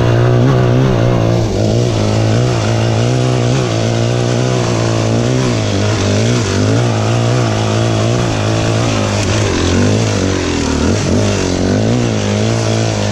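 Dirt bike engine running under way, its note rising and falling steadily as the throttle is opened and closed.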